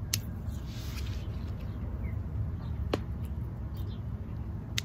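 Pruning snips cutting Kyoto fushimi pepper stems, three sharp clicks: one just after the start, one about three seconds in and one near the end, with leaves rustling between them. A steady low rumble runs underneath.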